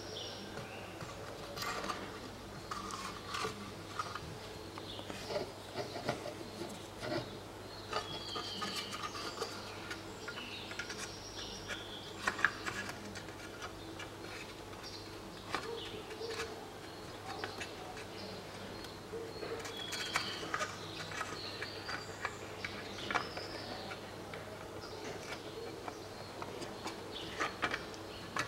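Hands working the plastic cover onto a car door lock housing: irregular small plastic clicks, taps and handling sounds. Short chirps, like a small bird's, are heard now and then behind them.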